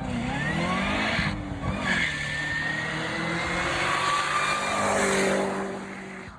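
A 2011 Cadillac CTS-V's supercharged V8 engine revving up and down, then holding a steady pitch under a thin high whine, before fading out near the end.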